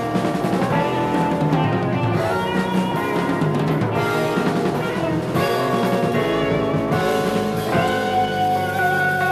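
Jazz-fusion band playing live: drums, bass, electric guitar and keyboards together. Near the end a single held note with a slight waver comes in over the band.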